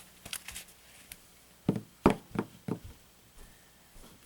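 Packaging being handled on a table: a few faint clicks, then a quick run of four or five knocks and taps about two seconds in.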